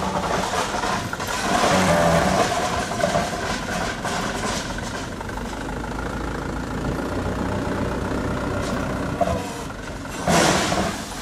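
Mitsubishi Fuso dump truck's diesel engine running as the truck rolls slowly along a dirt track, with a steady low drone that grows stronger in the middle.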